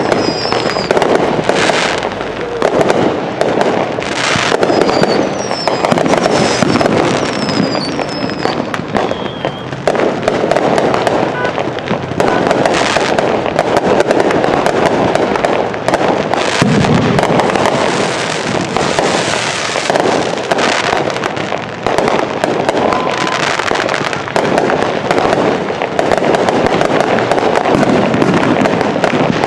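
Fireworks going off in a rapid, continuous barrage of overlapping bursts and crackling. Short falling whistles sound through the first several seconds.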